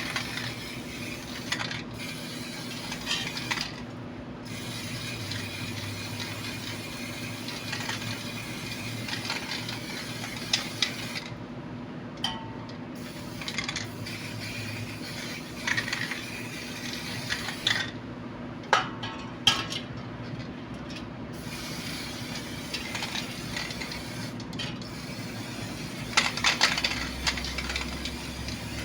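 Small metal parts and tools clinking and tapping as they are handled, with scattered sharp clicks throughout and a busier run of clinks near the end, over a steady low hum.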